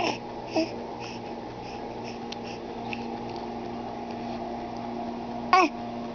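Baby making short vocal sounds: a brief falling squeak at the start, a smaller one just after, and a louder rising, wavering squeal near the end, over a steady low hum.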